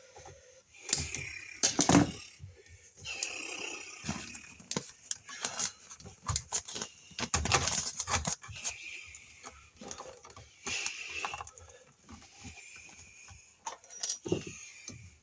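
Electrical cable being pulled and fed into a wall box: irregular rustling and scraping, with sharp clicks and knocks, loudest around two seconds in and again around seven to eight seconds in.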